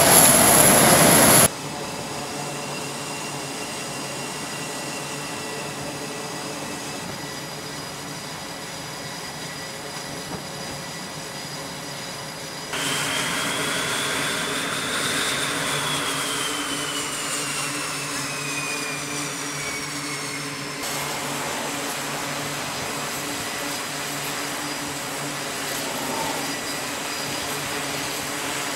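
Carrier jet aircraft engines running on the flight deck: a steady engine noise with a high turbine whine. It is loudest for the first second and a half, then drops abruptly; about 13 s in it jumps louder again, with a high whine that rises and then slowly falls, before dropping back about 21 s in.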